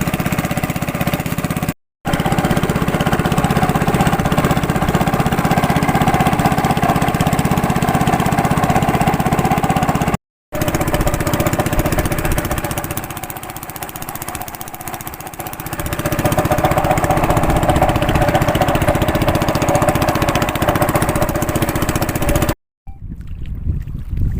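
A small boat's motor running steadily, with a loud mechanical drone. It is heard in three stretches split by brief silent cuts, and its pitch shifts from one stretch to the next.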